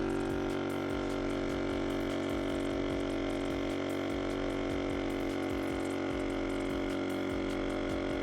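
Lasfit Air CR1 battery-powered portable tire inflator running, a steady, even mechanical hum as its compressor pumps air into a car tire.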